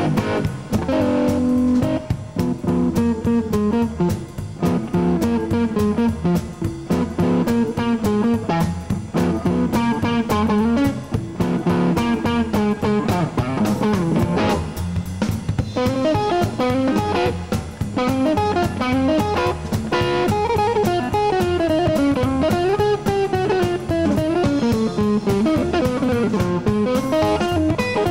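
Electric blues band playing live, led by a blonde hollow-body archtop electric guitar picking a single-note solo. The guitar lines bend and slide more from about halfway through.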